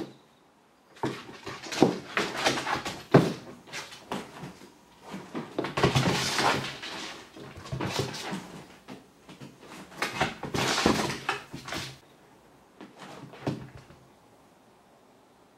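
A cat leaping, landing and scrambling on a wooden tabletop, its paws thumping and its claws scrabbling on the wood in several bursts of knocks and scratches.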